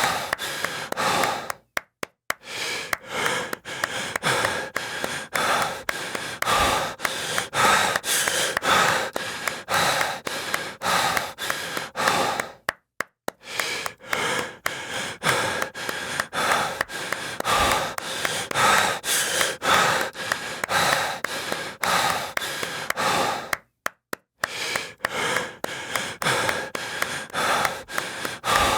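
Heavy breathing and gasping with quick claps, several a second. It stops dead for about half a second three times, roughly every 11 seconds, like a repeating loop.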